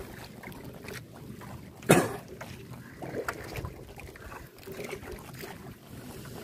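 Wet gill net being hauled by hand over the side of an outrigger boat: the mesh rustles, water trickles and drips off it, and the sea splashes at the hull. There is one sharp slap or knock about two seconds in, the loudest sound, with a few small clicks after it.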